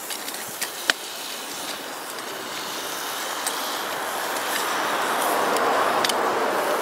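Steady hissing from the campfire and the pie iron sizzling in it, growing louder in the second half. A few sharp clicks cut through, the loudest about a second in.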